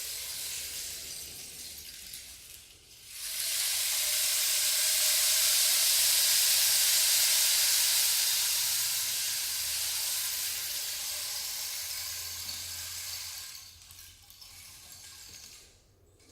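Slow, deep breathing close to the microphone, airy and hissing. A long loud breath starts about three seconds in and lasts about ten seconds, then a shorter, quieter breath follows near the end.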